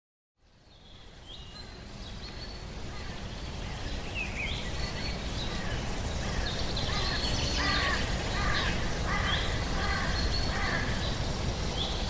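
Wild birds singing and calling, many short chirps over a steady outdoor hiss, fading in over the first two seconds.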